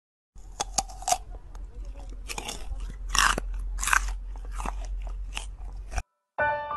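Sika deer chewing food taken from a hand: a run of crisp, irregular crunches.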